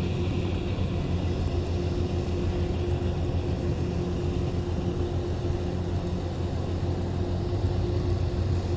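Steady low engine-like drone with a constant hum running underneath, unchanging in level.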